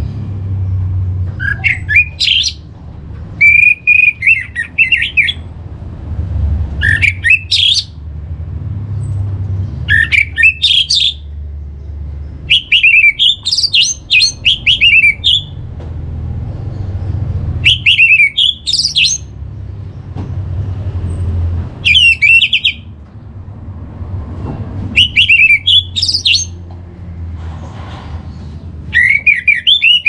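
Orange-headed thrush singing: loud phrases of rising and falling whistles and fast trills, one about every three seconds, over a steady low rumble.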